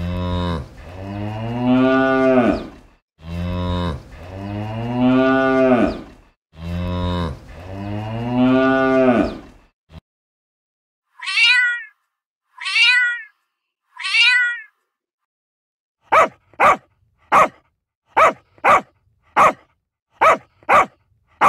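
A cow mooing three times in long low calls, then three short high meows falling in pitch, typical of a cat, then a dog barking about nine times in quick sharp barks.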